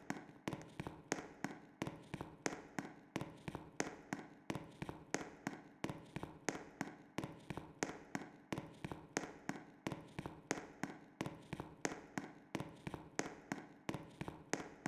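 A school fire alarm system sounding its evacuation signal between voice messages: a rapid, even train of sharp strikes, a little over two a second, each ringing briefly. It is heard at some distance and cuts off suddenly just at the end.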